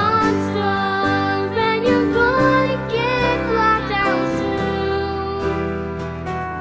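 A girl singing a slow, wavering melody over a steady instrumental accompaniment.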